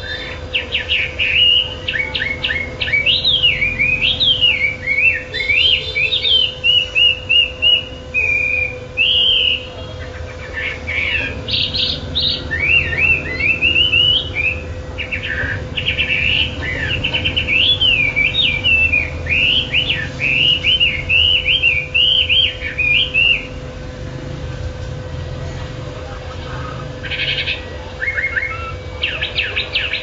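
A caged wambi songbird chattering on with nonstop song: quick runs of varied chirps, trills and whistled slurs. The song breaks off for a few seconds near the end, then starts again.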